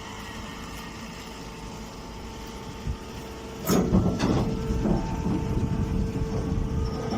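Baling machinery running with a steady hum. About halfway in it gives a sudden clank and goes on working with louder clattering.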